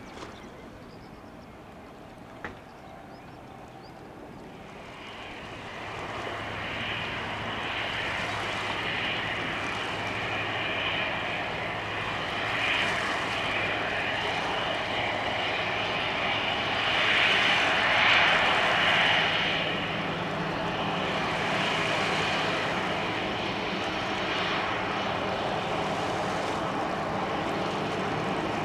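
Airbus A321's CFM56 turbofan jet engines running on the runway, growing louder from about five seconds in into a steady jet sound with a high whine over a low hum, loudest a little past the middle as the aircraft moves past.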